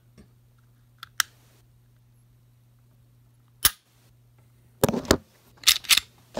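Smith & Wesson M&P9 Shield striker-fired pistol being dry-fired: the trigger is taken back and breaks with one sharp click about three and a half seconds in. Near the end come several quick clusters of clicks and clatter from handling the pistol.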